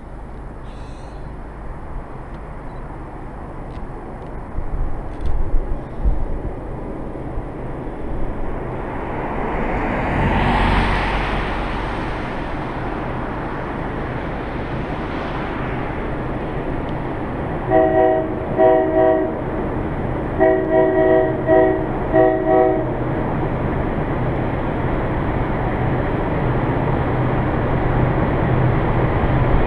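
Distant diesel freight locomotive sounding its air horn in four blasts, two long then two short, as the train approaches up the grade. The low drone of its engines grows steadily louder toward the end, over a few low buffets of wind on the microphone about five seconds in.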